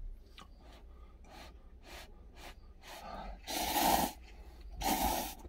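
A person eating a cup of spicy instant noodles with chopsticks: soft chewing and lip-smacking clicks, then two long, loud slurps of noodles in the second half.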